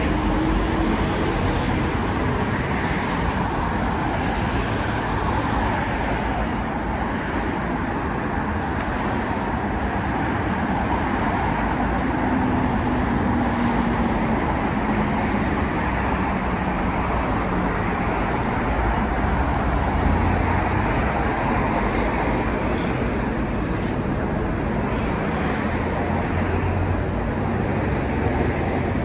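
Steady road traffic noise from a busy multi-lane city road, cars running past in a continuous wash of tyre and engine sound.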